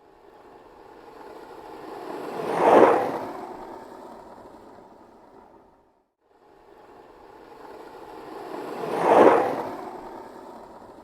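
Skateboard rolling past twice: the rumble of the wheels builds to a loud peak as it passes close, then fades away, about six seconds between passes.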